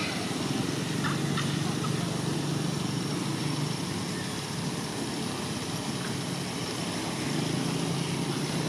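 A motor running steadily in the background as a low hum, with outdoor background noise and a few short high chirps near the start.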